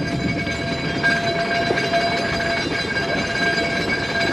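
Mt. Washington Cog Railway steam train climbing, heard from the coach: a steady rumble and rattle, with high, steady ringing tones that grow stronger about a second in.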